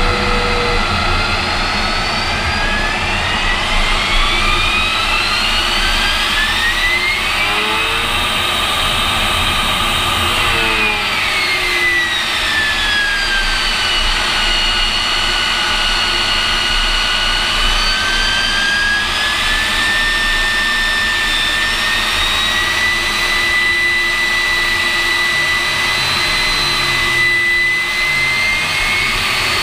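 AV-8B Harrier II's Rolls-Royce Pegasus turbofan heard from inside the cockpit in flight: a steady roar under a whine that rises in pitch a few seconds in, falls again around the middle, then holds nearly level.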